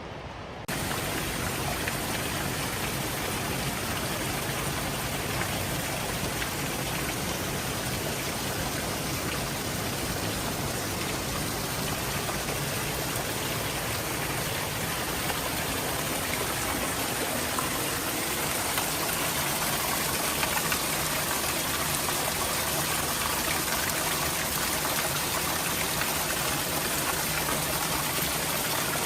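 Steady rain, a dense even hiss that jumps louder under a second in and then holds.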